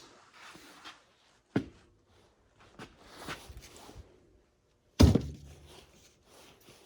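Objects being handled and set down on a hard surface: a few sharp knocks and thunks with soft rustling in between, the loudest thunk about five seconds in.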